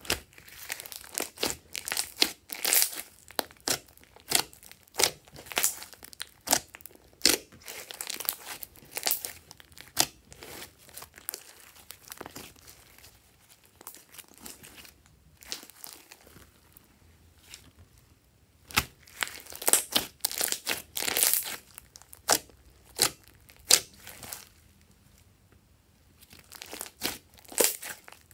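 Glossy slime being kneaded, pressed and folded by hand, giving irregular sticky clicks and pops as it stretches and squishes, in dense runs with a sparser stretch around the middle.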